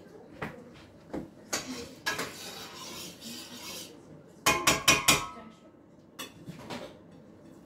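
Kitchen utensils and cookware clattering: scattered clinks and a stretch of scraping, then a quick run of four loud clanks about halfway through, the last ringing briefly.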